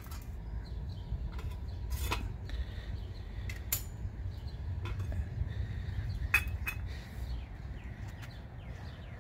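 Sheet-metal parts of a kerosene wick heater-stove being lifted out and set down: scattered clinks and knocks, the sharpest a little past six seconds in.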